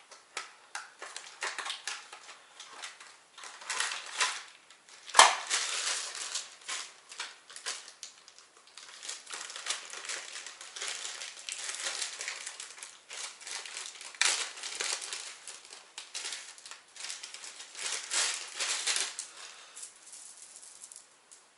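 Plastic packaging crinkling and rustling as it is handled and opened, with scattered small clicks and one sharp click about five seconds in.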